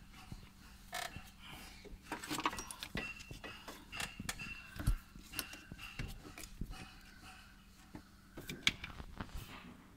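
Scattered light clicks, taps and knocks of hands and small metal parts being handled, with a faint steady hum underneath.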